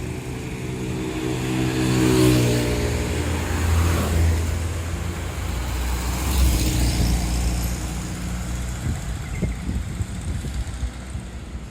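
Large tour coaches' diesel engines pulling away and driving past, with a deep rumble that swells about two seconds in and again around six seconds in.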